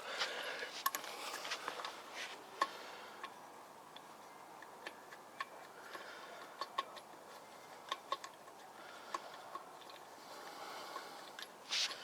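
Scattered, irregular metallic clicks and taps of a car wheel being worked back onto the hub studs and its lug nuts being handled, with a short scrape near the end.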